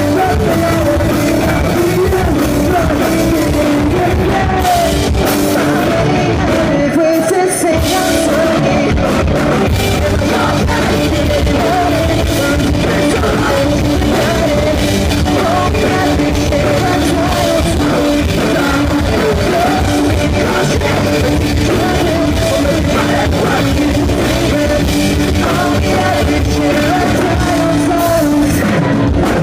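A pop-punk band playing a song live, with electric guitar, drum kit and a lead singer, loud and continuous.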